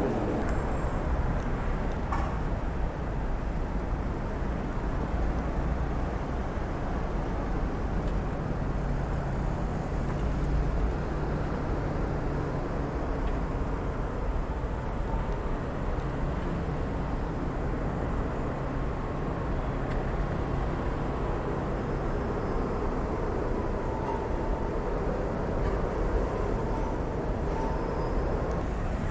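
Steady city street traffic: vehicle engines running and passing with a constant low rumble. A faint wavering whine comes and goes in the second half.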